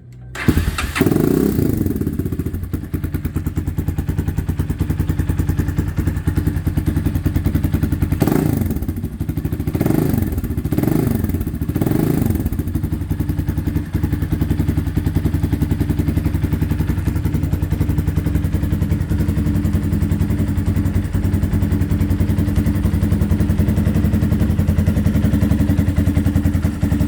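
Motorcycle engine running through an SC Project-style aftermarket exhaust fitted with a homemade dB killer (washers, nuts and bolts welded inside), set to sound deep but less loud. It comes in about half a second in with a quick rev, gets about five quick throttle blips near the middle, and otherwise idles steadily.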